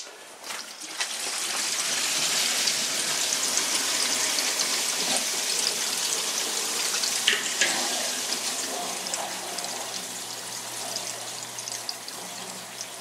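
A sharp click, then water rushing and hissing through the well system's pipes as they refill after the ball valve is opened; the lines still hold a lot of air. The rush eases off about two-thirds of the way in, and a steady low hum comes in under it.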